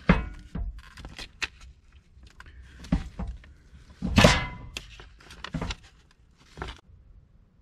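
Hard plastic reflective-triangle cases and other emergency gear knocking and clattering as they are handled in a truck's storage compartment: a string of short knocks, the loudest a longer clatter about four seconds in.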